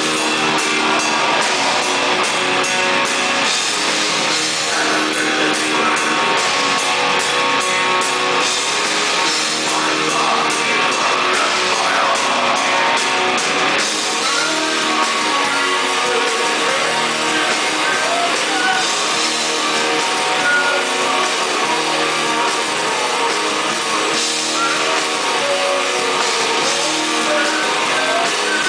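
A black metal band playing live and loud: heavily distorted electric guitars, bass guitar and a drum kit, with fast, regular cymbal strikes through the first half before the riff and drumming change about halfway through.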